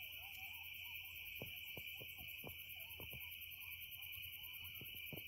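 Faint coyotes howling and yipping: wavering howls and scattered sharp yips that fall steeply in pitch, over a steady high chorus of night insects.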